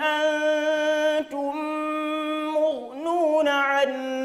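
A male Qur'an reciter chanting in long, steady melodic notes, drawing out the vowels as tajweed recitation does. The voice breaks off briefly about a second in and dips and wavers in pitch about three seconds in.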